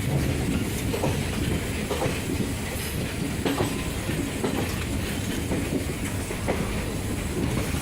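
Passenger train coaches rolling past with a steady low rumble, their wheels clacking irregularly over rail joints, about one or two clacks a second.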